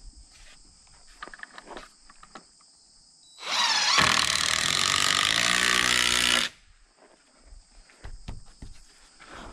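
Cordless DeWalt impact driver driving a long screw through a timber angle brace into the post and beam frame. It runs as one continuous burst of about three seconds, starting about a third of the way in and stopping suddenly. Faint handling knocks come before and after.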